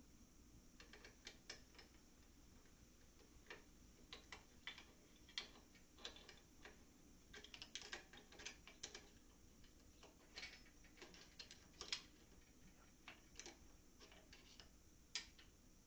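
Irregular light clicks and taps of hand tools and metal parts, as bolts on the backhoe's motor mount are worked loose.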